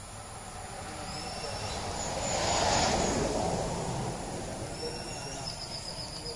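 A vehicle passing by, its noise swelling to a peak about three seconds in and then fading away, with faint bird calls.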